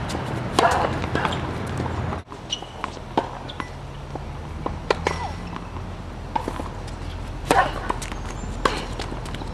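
Tennis rally on a hard court: sharp pops of the ball being struck by rackets and bouncing on the court, coming at irregular gaps of a second or two.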